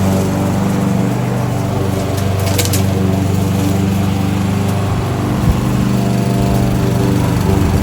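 Kohler XT-675 single-cylinder engine on a Yardworks push lawnmower running at a steady speed. There is a short click about two and a half seconds in and a sharp knock about halfway through.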